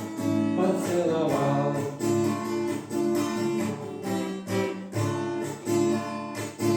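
Acoustic guitar strummed in a steady rhythm, accompanying a male singer who holds the last word of a line early on before the guitar plays on alone.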